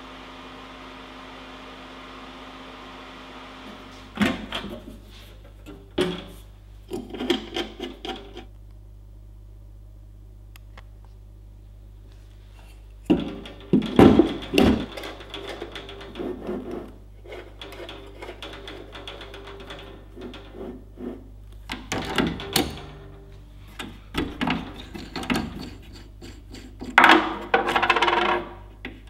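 Handling noises from objects being moved, knocked and set down: clusters of knocks, clatter and rubbing come and go, loudest about 14 seconds in and again near the end. A steady low hum runs underneath.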